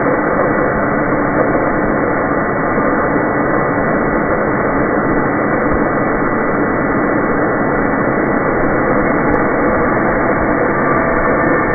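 Homemade bandsaw blade sharpener running steadily, its motor-driven grinding wheel spinning. Near the end the wheel grinds against a tooth of the bandsaw blade, and a few steady tones come in over the running noise.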